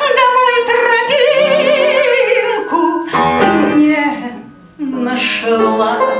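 A woman singing a Russian folk song with upright piano accompaniment. She holds one long note with a wide vibrato for the first few seconds, and after a brief dip a new phrase begins about five seconds in.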